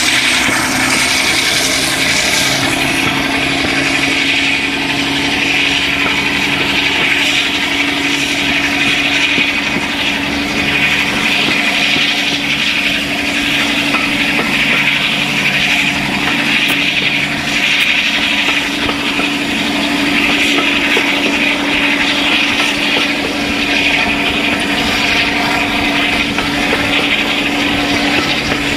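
Class 52 'Western' diesel-hydraulic D1013's twin Maybach engines running steadily under power, a continuous engine drone heard from an open carriage window over wind rush and wheel noise. A lower note in the drone drops away about two-thirds of the way through.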